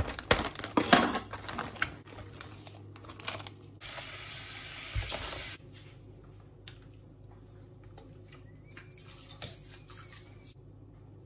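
Crinkling and clicking of a plastic food tray and its film being handled. About four seconds in, a steady rush of running water into a stainless steel sink lasts under two seconds; after it come faint taps and a thin trickle as distilled vinegar is shaken from a bottle onto raw chicken in the tray.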